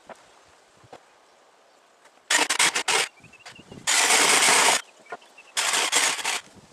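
Cordless drill-driver driving screws into deck-stair lumber, in three short bursts of under a second each with pauses between.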